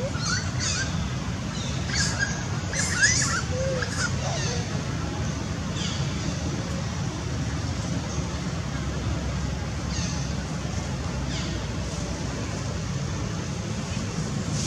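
Scattered short, high-pitched animal chirps and squeaks, some sweeping down in pitch, over a steady low rumble. They come in clusters during the first four seconds, then singly now and then.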